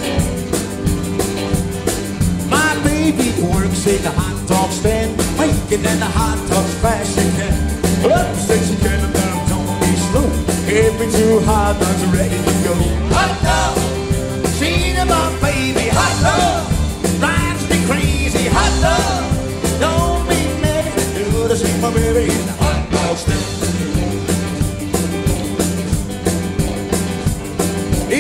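Live rock and roll band playing at full volume: drums, electric guitars, bass and piano, with a melody wavering over the top from a few seconds in.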